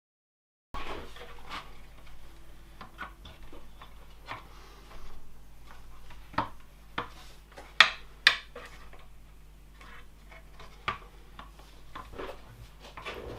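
Hard plastic parts clicking, tapping and knocking against each other as 3D-printed lever latches, pivot pins and pillow blocks are handled and fitted together by hand. The clicks are irregular, with two sharper knocks a little before the middle, over a steady low hum.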